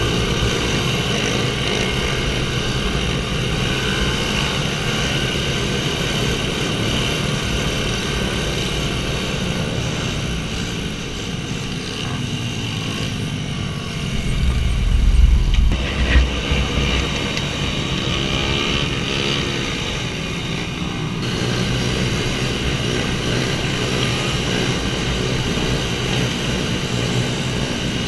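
Several small pit bike engines running at once, their pitches rising and falling as the riders rev. There is a louder low rumble for about two seconds near the middle.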